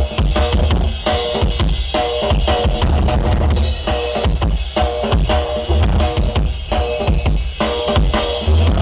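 Loud live band music: a driving drum kit and hand percussion with a heavy bass beat, over the low drone and rhythmic pulses of a didgeridoo.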